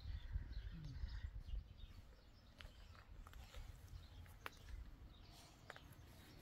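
Quiet outdoor ambience: a low rumble, most likely wind on the microphone, in the first couple of seconds, then a few faint short clicks and chirps.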